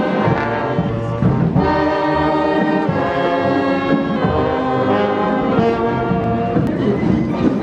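Street band playing, brass horns holding notes together over a low rhythmic beat.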